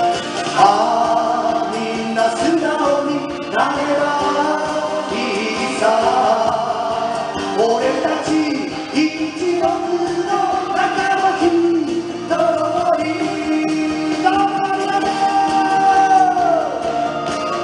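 A man singing a ballad live to his own strummed acoustic guitar, holding a long note near the end that falls away.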